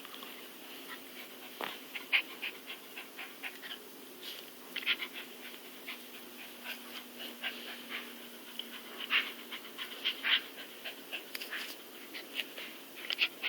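A dog panting, heard as short, irregular breath sounds, a few of them louder.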